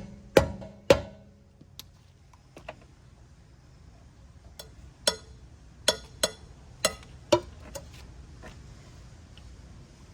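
Sharp metal clanks of a lug wrench being worked onto and against the wheel's lug nuts, about a dozen irregular knocks with a brief ring; the nuts' thin decorative caps are deformed, so the wrench does not seat easily.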